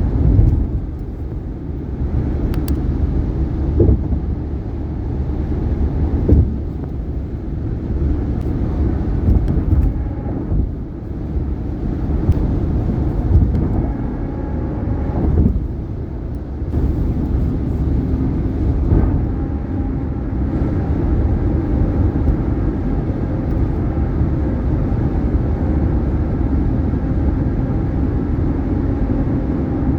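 2018 Subaru Outback's tyres running at highway speed, a steady low road rumble, with several short thumps as the tyres cross bridge expansion joints.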